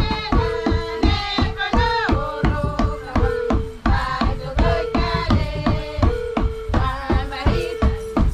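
Background music with a steady beat and a melodic line over a repeating held note.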